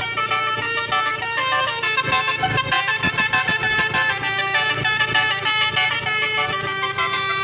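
Tour bus's "basuri" musical air horns, roof-mounted telolet trumpets, playing a tune of quickly changing notes over the bus engine's low rumble.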